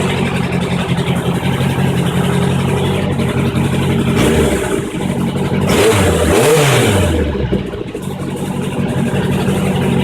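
1983 Honda CB750SC Nighthawk's air-cooled inline-four idling steadily, blipped briefly about four seconds in, then revved up and let fall back to idle about six seconds in. It is running after a carburetor overhaul and sync, with a failed spark plug replaced.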